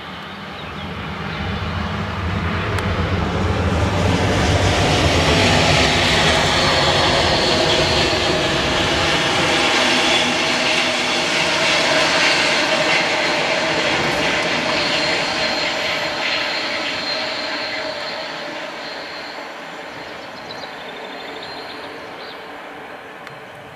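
Passenger train hauled by an SBB Re 421 electric locomotive passing by: a steady rush and rumble of wheels on rail, with a low hum from the locomotive at first. It builds over the first few seconds, stays loud through the middle and fades away as the train recedes.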